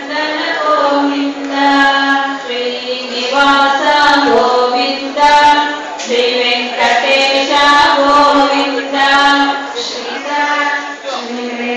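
A group of voices singing a Hindu devotional chant together in long, held melodic phrases.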